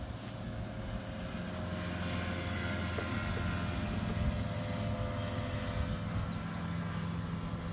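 A steady engine drone over the hiss of falling rain.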